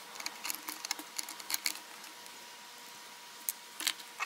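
Light scattered clicks and scrapes of a small steel hand tool and metal parts being handled on a DRO reader-head mounting bracket, with a cluster of clicks in the first couple of seconds and a few more near the end.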